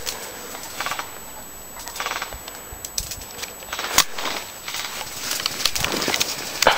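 Scattered sharp clicks and pops over a steady outdoor hiss, with one louder crack about four seconds in and a quicker run of clicks near the end.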